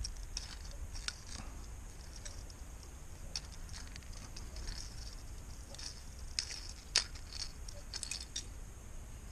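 Faint, irregular small clicks and ticks over a low steady rumble, the sharpest about seven seconds in.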